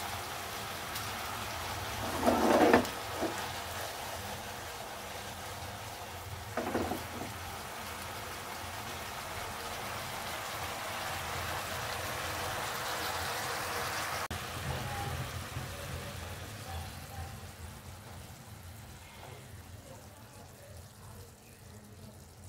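Spice-marinated small whole birds sizzling in a frying pan, a steady sizzle that grows through the middle and fades over the last several seconds. Two brief louder sounds stand out, about 2.5 s and 7 s in.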